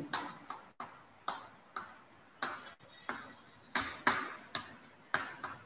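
Chalk tapping and scratching on a blackboard during writing: a run of short, sharp, irregular taps, about two a second.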